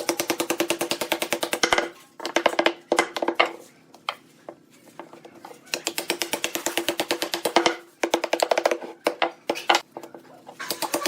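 Wood lathe with a turning tool making an interrupted cut on an out-of-round or gapped workpiece: a rapid, even clatter of knocks, well over ten a second, in short bursts as the tool touches the spinning wood and comes away.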